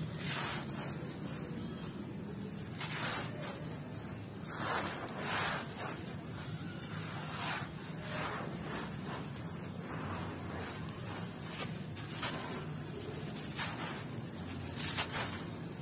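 Bare hands scooping up dry fine gravel and dust, crumbling it and letting it trickle and pour back onto the pile: a gritty, rustling hiss that rises in repeated surges of about a second each as handfuls fall.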